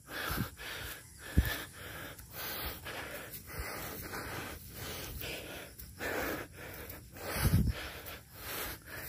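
A man panting heavily while walking uphill, out of breath, with quick, even breaths one after another. A low thump comes about seven and a half seconds in.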